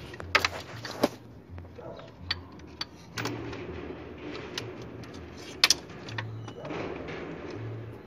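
Irregular sharp metallic clicks and clinks of a socket wrench on a long extension working the mounting bolts of a car's electric radiator fan motor, with handling noise between; a loud double clink comes a little past halfway.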